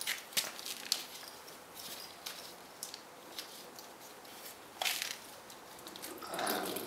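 Scattered light clicks and rustles of hands and a small wrench working at the engine's water pump drain bolt. Near the end a soft rising trickle starts as coolant begins to run out of the drain.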